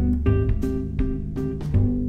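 Instrumental background music, plucked notes at a steady pulse over a bass line.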